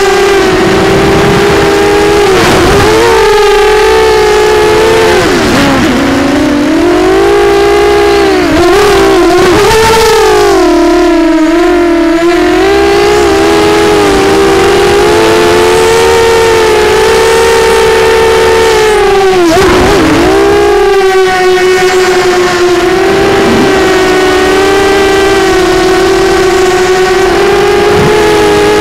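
Quadcopter's Sunnysky 2204 2300 kV brushless motors spinning Gemfan 6-inch props, a loud buzzing whine heard through the camera mounted on the frame. Its pitch drops and snaps back up several times as the throttle is chopped and punched through acro flips and rolls, the deepest dip about twenty seconds in.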